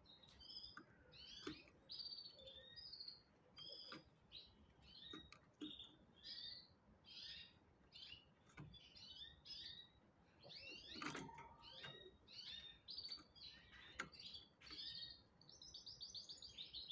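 Canaries chirping and twittering faintly in short, high notes, several a second, with a fast trill near the end and a few sharp clicks among them.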